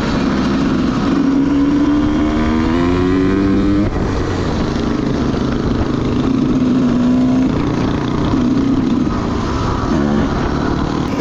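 Dirt bike engine accelerating under load, its pitch climbing for about four seconds, dropping suddenly at a gear shift, then holding and climbing again.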